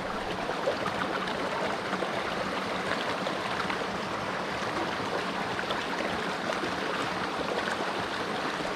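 Trout stream running: a steady rush of flowing water.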